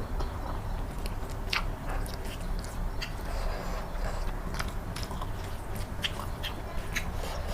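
Close-miked chewing of egg curry, with wet mouth clicks and smacks scattered irregularly through it; the sharpest click comes about one and a half seconds in.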